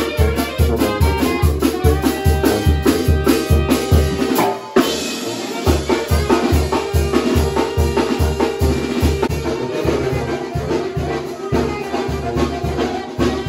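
Live band of sousaphone, saxophone and drum kit playing a fast dance tune with a quick, steady beat in the low end. The music breaks off for a moment about five seconds in and picks up again.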